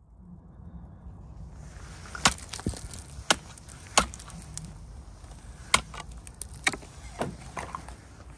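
Thin shore ice cracking, with about six sharp cracks at irregular spacing and smaller ones among them, over a steady low rumble.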